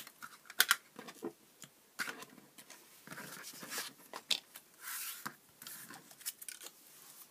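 Card stock rustling and sliding as it is moved about on a cutting mat, with scattered light taps and clicks of craft tools being handled.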